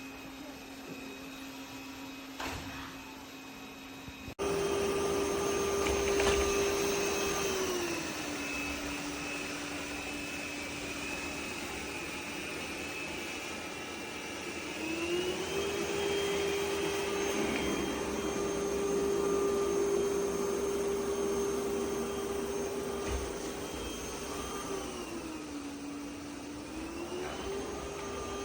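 Roborock Qrevo Curv S5X robot vacuum running with a steady motor whine. About four seconds in it jumps suddenly louder and higher, then steps down and back up in pitch a few times as the motor changes speed.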